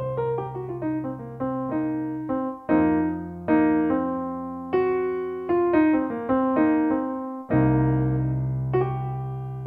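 Background piano music: a slow melody of single notes over held low notes, each note ringing out and fading.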